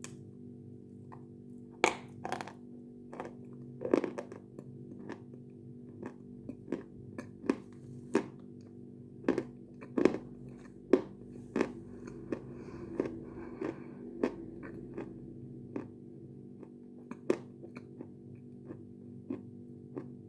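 Someone biting and chewing lumps of Khrapovsky natural chalk: sharp, crisp crunches come irregularly, roughly every second or two, over a steady low hum.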